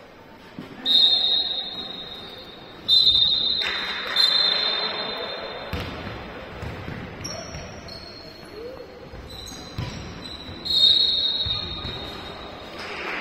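Several sharp, loud whistle blasts in a sports hall during a korfball match, each a steady high tone lasting about a second, over crowd voices that swell after the second blast.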